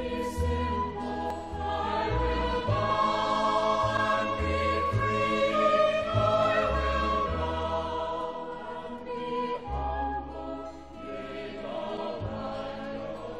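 A choir singing a slow, hymn-like song in several voice parts over a low bass line that moves note by note.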